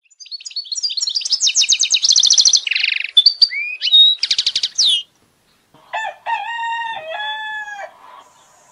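Small birds chirping and trilling rapidly for about five seconds. After a short pause a rooster crows once, a drawn-out cock-a-doodle-doo.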